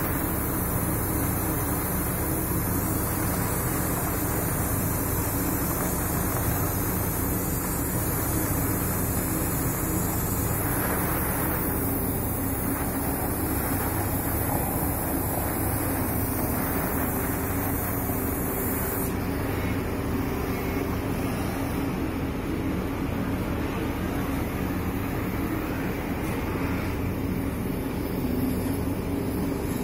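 Oxy-fuel cutting torch hissing steadily as its flame and oxygen jet cut through a steel flat bar.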